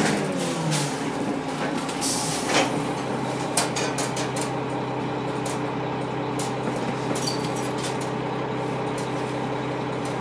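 Cummins M11 diesel engine of an Orion V transit bus, its revs falling in the first second and then settling to a steady idle. A short hiss comes about two seconds in, with a few scattered clicks and knocks over the idle.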